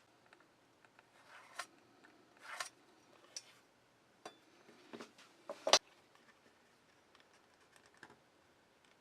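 Scattered clicks, taps and brief scrapes of hand work at a workbench, with one sharp knock a little over halfway.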